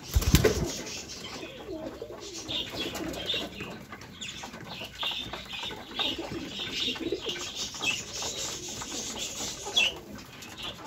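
A brief burst of wing flapping at the start, then a domestic pigeon cooing low on its nest, with short, high bird chirps repeating throughout.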